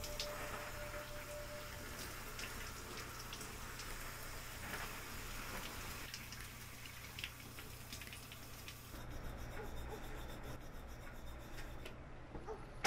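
Shower running: water spraying and pattering on a person and tiled walls, over a steady low hum. It stops about nine seconds in, leaving a quieter room.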